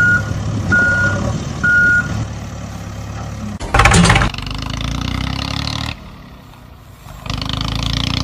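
A vehicle reversing alarm beeps three times, then a truck-like engine runs, dropping away for about a second and coming back near the end. A short loud burst of noise comes at about four seconds.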